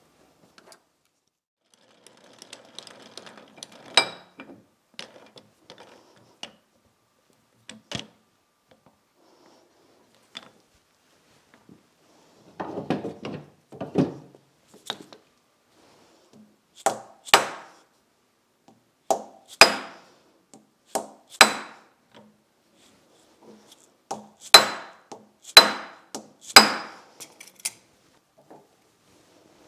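Scattered knocks and clicks of metal workpiece and tools being handled and set down, with a run of sharper metallic clanks in the second half, some ringing briefly.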